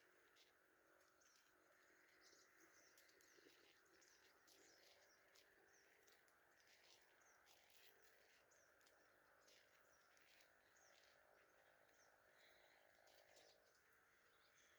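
Near silence: faint outdoor evening ambience with faint bird chirps.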